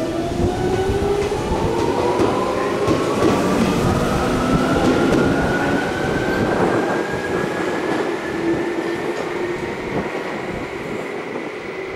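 Tokyu 8500 series electric train pulling away, the whine of its field-chopper-controlled DC traction motors rising steadily in pitch as it gathers speed, over the rumble of wheels on rail.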